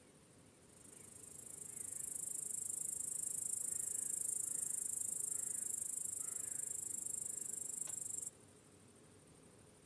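Crickets chirping in a high-pitched, finely pulsed trill that swells in over the first two seconds and cuts off abruptly about eight seconds in.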